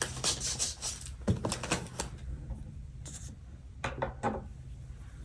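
Close-up paper handling on a planner: crisp rustles and clicks of a sticker sheet and page being handled and a sticker pressed down. The sounds are dense for the first two seconds, then come as a few scattered taps.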